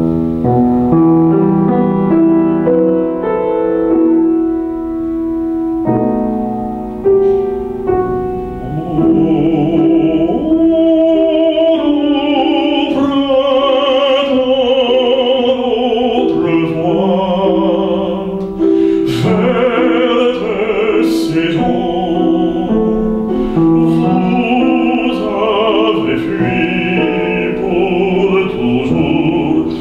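A grand piano plays an opening passage alone. About nine seconds in, a male classical singer comes in with a vibrato-rich operatic voice over the piano accompaniment.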